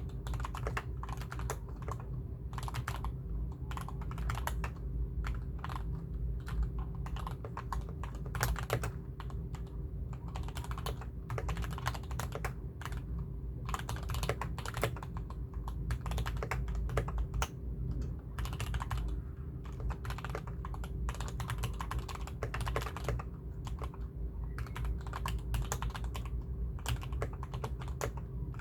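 Continuous fast typing on a GK61 mechanical keyboard with vaseline-lubed Gateron Ink Black linear switches, YUNZII Milk keycaps and a double-layer foam mod: a dense, irregular run of deep thocky keystrokes. A steady low hum runs underneath.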